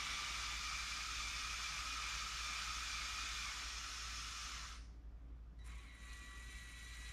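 Small electric motors of a Lego Technic Liebherr excavator model whirring with a steady high whine as the arm moves, stopping abruptly about five seconds in. Shortly after, a fainter, higher-pitched motor whine starts as the Lego dump truck begins to drive.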